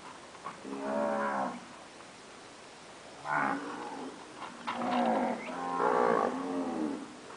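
Nelore cattle mooing: one moo about a second in, then a run of several more, some close together, from about three seconds on.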